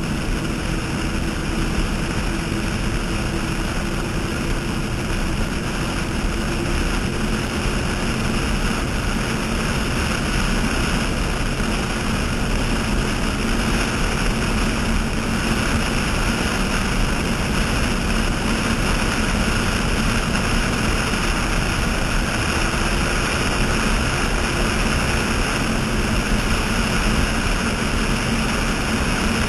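Offshore racing catamaran running flat out: a steady drone of its engines mixed with the rush of wind and spray.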